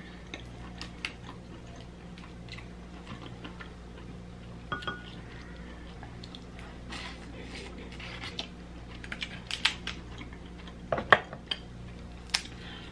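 Shell of a boiled crab leg being cracked and picked apart by hand: scattered sharp clicks and crackles, sparse at first and coming thicker near the end, with the two loudest snaps in the last two seconds. A faint steady low hum runs underneath.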